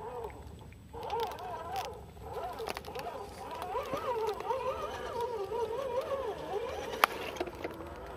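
Electric motor and gear whine of 1/10 RGT EX86100 V2 RC crawlers driving through mud and water, its pitch rising and falling as the throttle is worked. A sharp click about seven seconds in.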